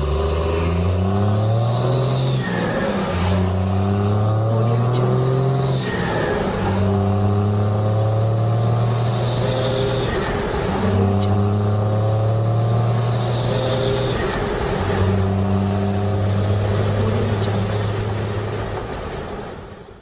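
Intro sound effect of an engine accelerating up through the gears: its pitch climbs and falls back at each shift, about every three to four seconds, with a whooshing sweep over each climb. It fades out near the end.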